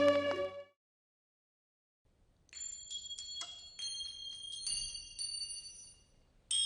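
Ambient music cuts off in the first second, leaving silence. About two and a half seconds in, high tinkling chimes begin: a cluster of overlapping bright strikes ringing for a few seconds, a short gap, then another bright strike near the end.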